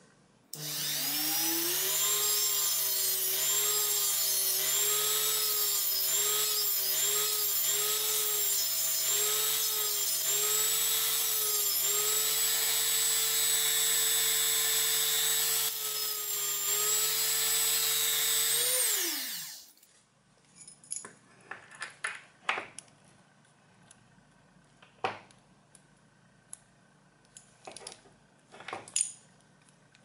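Dremel rotary tool with a grinding stone spinning up about half a second in, then running with a high whine that dips and recovers as a hairclip is pressed against the stone to grind it thinner. It switches off about two-thirds of the way through and spins down, and light clicks and taps of handling the small metal pieces follow.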